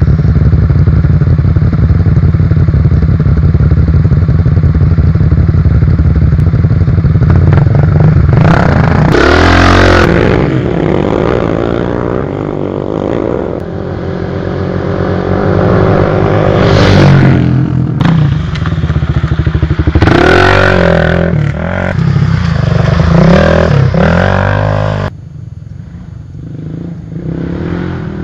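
Kawasaki KLX trail bikes' single-cylinder four-stroke engines running steadily, then revved hard and accelerating away. Engine pitch rises and falls several times as bikes rev and pass close by. Near the end the sound drops abruptly to a quieter, more distant bike engine.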